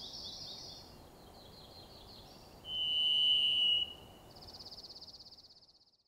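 Varied thrush song: one long, steady whistled note about three seconds in, then a higher, trembling buzzy note that fades out. High, quick bird trills come before it.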